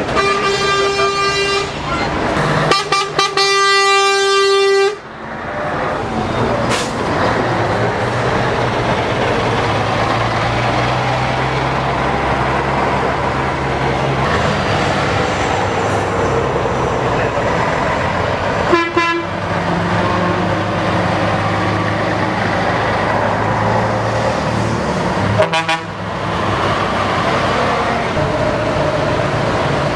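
A line of trucks driving slowly past, honking: a horn blast in the first second and a half, then a longer, louder blast from about three to five seconds in. After that the diesel engines of the passing trucks run steadily, with short horn toots about 19 and 26 seconds in.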